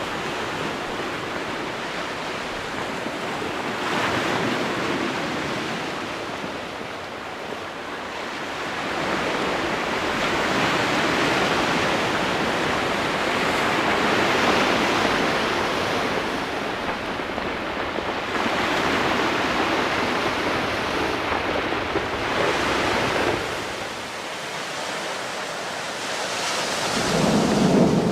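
Sea waves and wind buffeting the microphone: a rushing noise that swells and fades every few seconds, growing deeper and louder near the end.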